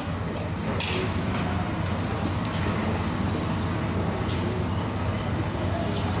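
Steady low rumble of background vehicle noise, with a few short clicks and scrapes as a motorcycle's front number plate and its fasteners are handled and fitted.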